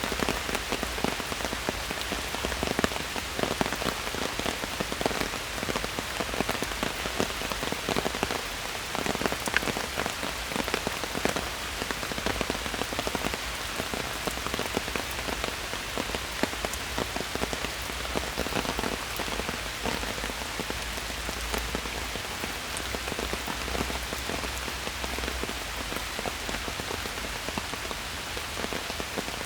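Steady rain falling in a park forest, with a continuous hiss and many close individual drops pattering on leaves and surfaces.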